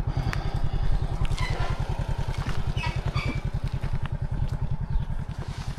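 A vehicle engine running at low speed, a rapid, even low throb, with a few light clicks and rattles over it.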